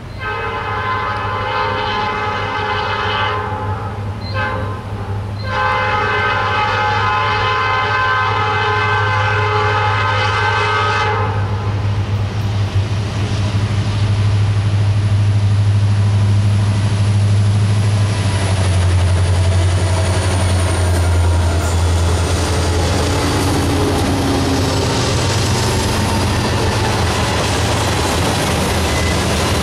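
Diesel freight locomotives' air horn sounding in blasts, with two short breaks and then one long blast that stops about eleven seconds in, as the train nears a grade crossing. The locomotives' diesel engines then pass close, followed by a long string of tank cars and covered hoppers with steel wheels rolling over the rails.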